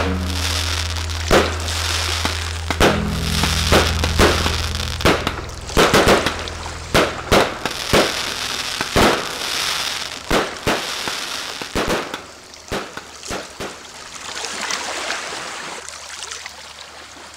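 Fireworks going off in a long series of sharp bangs with crackling between them, over background music; the bangs thin out and the sound fades near the end.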